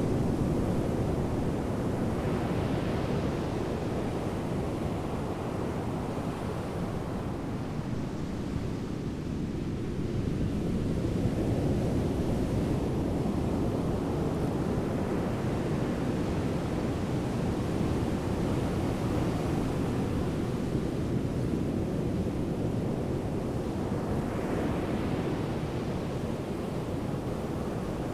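Strong sandstorm wind blowing over the microphone: a steady low rush, with gusts brightening the sound about three seconds in and again near the end.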